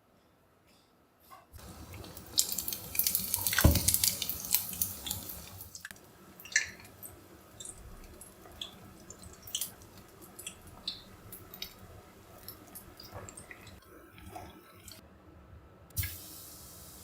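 Kitchen water sounds: water runs and splashes for a few seconds, then scattered light drips, clicks and taps follow.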